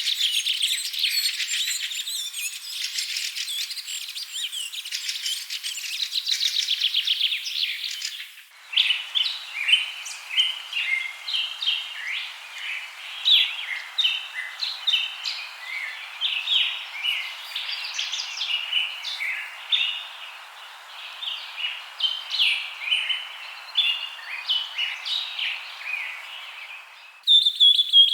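Small songbirds chirping and singing: a dense, busy chorus of high chirps, then about eight seconds in an abrupt switch to a different recording of separate, spaced chirps and short song phrases over a soft steady background hiss, switching again near the end.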